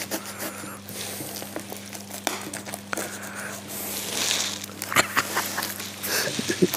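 Hands working at a taped cardboard parcel: packing tape and cardboard rustling and scraping, with a few sharp snaps and clicks, the loudest about five seconds in.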